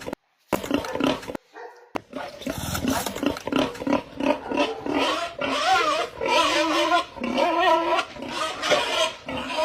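Small portable generator engine running, its pitch wavering up and down.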